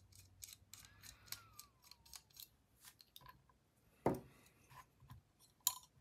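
T10 Torx screws being backed out of a folding knife with a small driver: a run of faint small metallic clicks and a brief squeak that falls in pitch about a second in, then two sharper clicks near four and five and a half seconds in.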